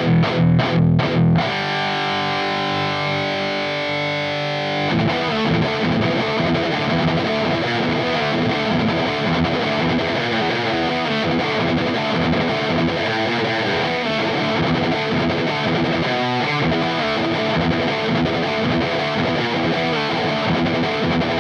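Heavily distorted electric guitar through a Diezel VH4 tube amp's channel 4, picked up by a microphone on a Vintage 30 speaker: a few short choppy chords, a chord left ringing for a few seconds, then about five seconds in, continuous fast riffing.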